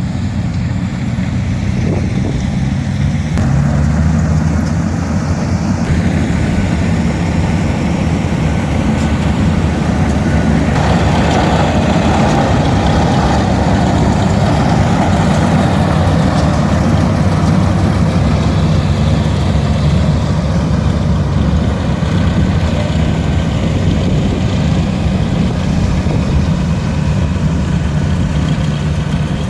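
Large diesel engine running steadily, with a low hum throughout and a fuller, noisier stretch between about a third and halfway through.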